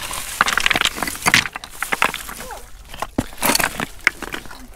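Pebbles and shells clicking and crunching in quick, irregular taps as a hand rummages through wet seaweed and loose stones among rocks.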